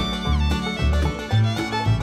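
Instrumental background music with a steady bass line.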